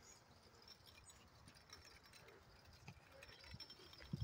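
Near silence, with a few faint footsteps, about two a second, setting in about three seconds in.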